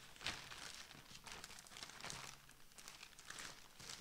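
Black plastic mailing bag crinkling and rustling in short irregular rustles as it is handled and opened.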